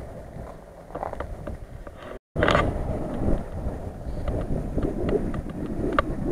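Wind buffeting the microphone over the low, steady running of off-road SUV engines, with scattered light clicks and a brief dropout about two seconds in.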